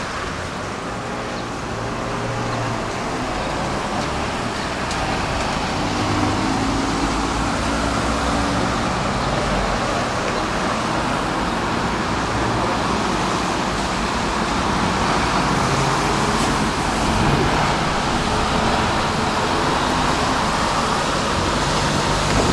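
Steady road traffic on a wet city street, cars passing, with a semi-trailer truck driving by near the end.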